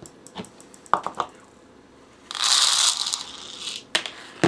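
Paper towel rustling loudly as it is unfolded and spread flat, for about a second and a half in the middle, after a few light clicks and taps near the start.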